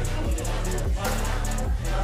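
Background music: a beat with deep bass notes that slide down in pitch and a quick, steady hi-hat pattern.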